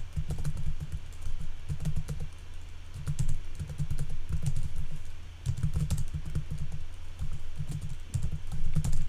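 Typing on a computer keyboard: quick runs of keystrokes in bursts with short pauses, each keypress a click with a dull low thud.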